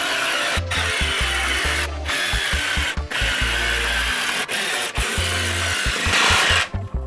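Cordless jigsaw cutting a plywood panel, its blade rasping steadily with a few brief dips, stopping shortly before the end. Electronic background music with a pulsing bass beat plays underneath.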